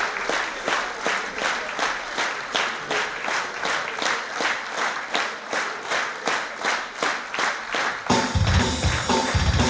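Theatre audience clapping in unison in a steady rhythmic beat, a little over two claps a second, for the cast's bows. About eight seconds in, music with a heavy bass cuts in over the clapping.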